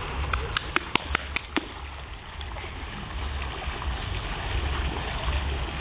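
Water splashing and running in a seal pool, with wind rumbling on the microphone. About a second in there is a quick run of about seven sharp clicks.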